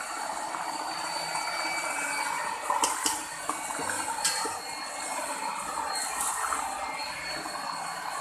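Electric hand mixer running steadily, its beaters churning thick cultured cream in a steel pot to bring it to butter, with a thin high motor whine and a few sharp clicks.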